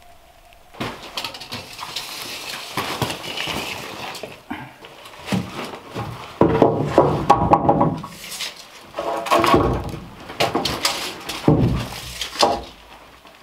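Knocks, scrapes and rustling from stones, gravel and wood scraps being moved about by hand on a dirt-and-gravel floor, mixed with footsteps. There are several louder spells of scraping, the loudest starting about six seconds in.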